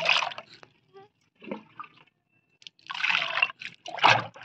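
Water poured from a glass into a bucket of frothy mustard-cake fertiliser liquid to thin it, splashing in short bursts. The last splash, just before the end, is the heaviest.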